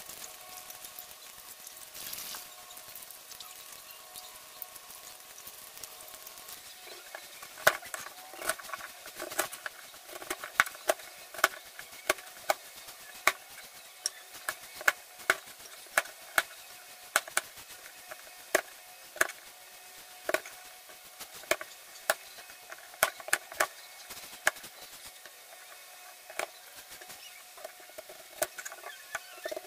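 Kitchen knife cutting peeled taro into fry strips on a plastic cutting board: sharp knocks of the blade striking the board, irregular, about one or two a second. The knocks begin several seconds in, after a faint hum.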